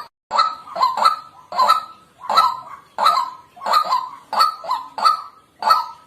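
White-breasted waterhen calling: a steady run of loud, nasal 'kwak' notes, about two a second, some coming in quick pairs.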